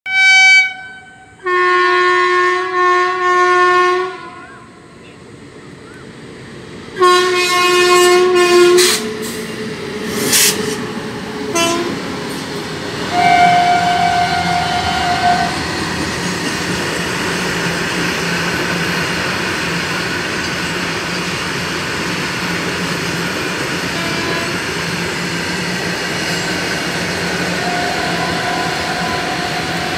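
An Indian Railways electric freight locomotive sounds its multi-tone horn in a series of blasts, long ones about two and seven seconds in, then several shorter ones. After that comes the steady rumble and clatter of a long rake of open freight wagons rolling past close by, with one more faint horn near the end.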